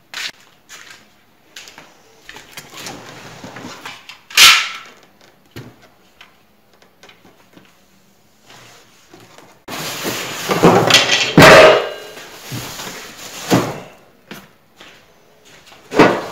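Unpacking noises: cardboard box flaps, polystyrene packing and the table saw's metal parts being handled, lifted out and set down. A sharp knock comes about four seconds in, and a loud stretch of rustling and scraping runs for a couple of seconds around the ten-second mark.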